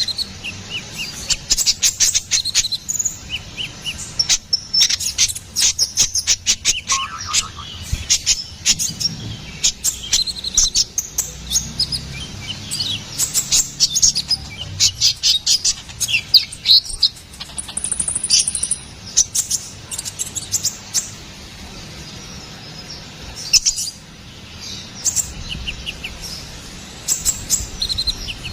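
Sunbird known in Indonesia as konin or kolibri ninja, singing a rapid, high twittering song of sharp chirps and trills, with a short lull a little past the middle.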